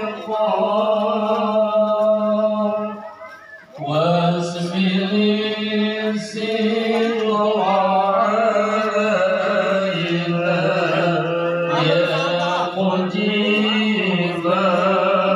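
A voice chanting a melody in long, wavering held notes, pausing briefly about three seconds in before going on.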